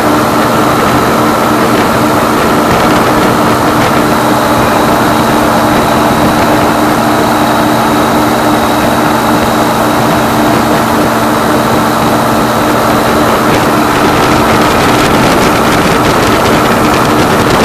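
Powered parachute's engine and propeller running steadily in flight, heard loud and close from the seat: a constant drone over a rush of air. Its tone changes slightly near the end.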